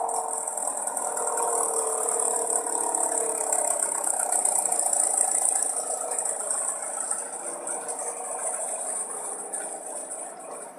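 Car engine idling with no exhaust system fitted, a steady open, rattly running that slowly gets quieter.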